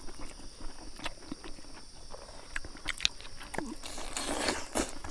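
Close-up eating sounds: fingers working food on banana leaves, then biting and chewing mouthfuls of smoked pork, with scattered wet smacks and clicks and a denser stretch of chewing about four seconds in.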